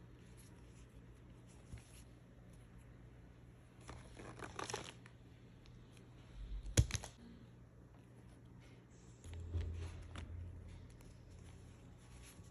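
Toy packaging being opened by hand: cardboard and plastic tearing and crinkling in two short stretches, with a single sharp knock about halfway through.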